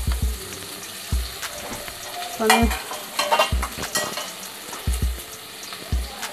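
Sliced onions sizzling in hot ghee in an aluminium pressure-cooker pan as they are sautéed, a steady frying hiss. A spoon stirs and scrapes them, with short knocks against the pan about once a second.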